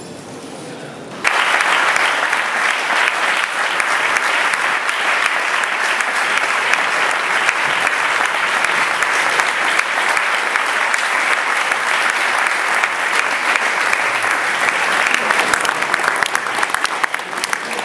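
Audience applauding: the clapping starts suddenly about a second in, holds steady, and thins to scattered claps near the end.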